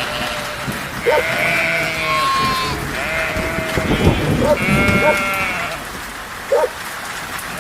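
Livestock bleating, several overlapping wavering calls, some long and some short, over a steady hiss of rain.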